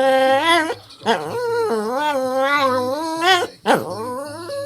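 A dog 'talking' in long, drawn-out whining howls, pitched and wavering and bending upward at the end of each. One call ends shortly after the start, a second lasts about two seconds, and a third begins near the end.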